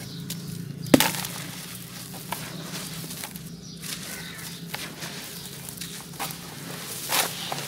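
Dry sand-cement lumps crushed and crumbled between bare hands, gritty crunching with scattered sharp cracks as pieces break off, and crumbs and powder falling into a shallow basin of water. One loud crack comes about a second in, and a few more near the end.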